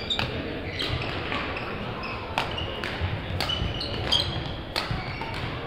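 Badminton rally: several sharp racquet strikes on a shuttlecock, with rubber court shoes squeaking on the sports floor between the hits.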